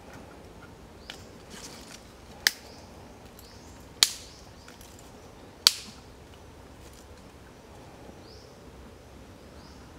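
Three sharp knocks, about a second and a half apart, from hand work at the ground, the later two ringing off briefly; a few softer clicks and faint short rising chirps between them.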